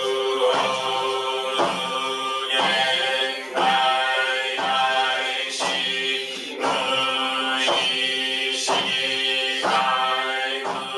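Group of voices chanting a Zen Buddhist chant in unison on a steady, near-monotone pitch, with a regular beat about once a second marking the rhythm.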